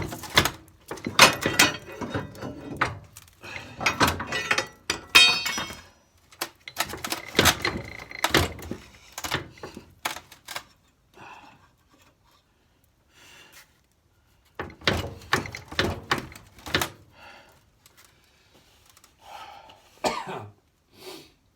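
Clanks, knocks and thuds of metal garden-tractor parts being handled and shifted, in several bursts of irregular impacts with a quiet stretch in the middle.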